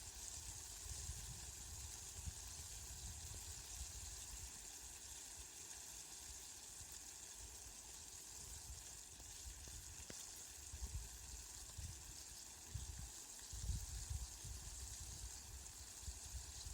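Steady rain falling, an even hiss throughout, with a few short low rumbles near the end.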